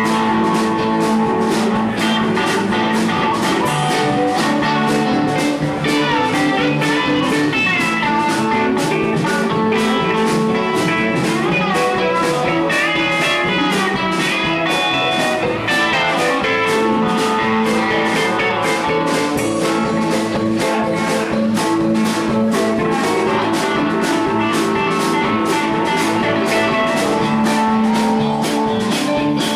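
Live band jamming: guitar lines played over a drum kit keeping a steady beat.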